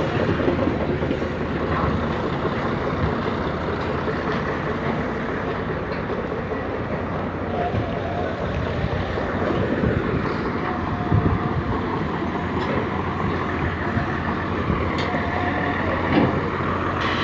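Excavator's diesel engine running steadily, with a few faint knocks over it.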